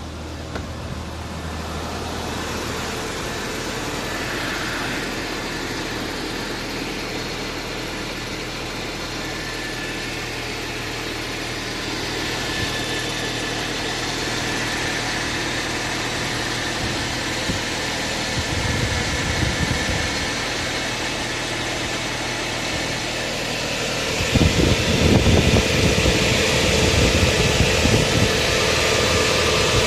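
Audi A4 B5's 1.8-litre four-cylinder (APT) idling steadily just after a cold start, running normally once the brief camshaft chain tensioner rattle has died away. About three-quarters of the way through the sound turns louder and rougher.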